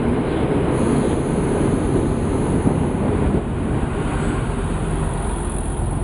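ALn 668 diesel railcar approaching and drawing alongside on the platform track, its engine and running gear making a steady rumbling noise. A deeper low rumble comes in near the end as the railcar reaches the microphone.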